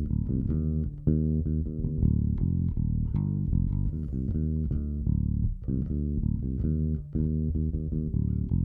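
Electric bass guitar line of short plucked notes, played back through a Tegeler Audio Manufaktur Vari Tube tube compressor with its controls at noon, which is taking about 3 to 6 dB of gain reduction off the bass.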